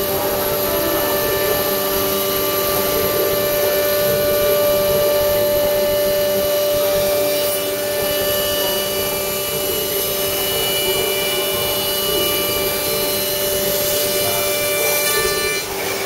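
A CNC router's spindle whines steadily as its bit mills a wooden board, with the rasping noise of the cut under the tone. The sound dips briefly near the end.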